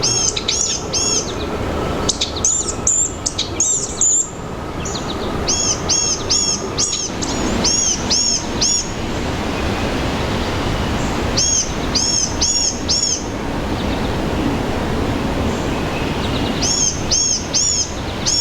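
Blue-gray gnatcatcher calling: runs of short, high, rising-and-falling notes in bursts of about four to eight, with pauses of a few seconds between bursts.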